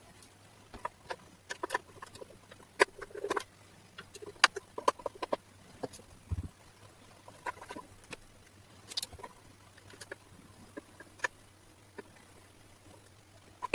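A small portable black-and-white CRT TV's plastic cabinet being handled, with irregular clicks, taps and light knocks and one dull bump about six seconds in. A faint steady low hum runs underneath.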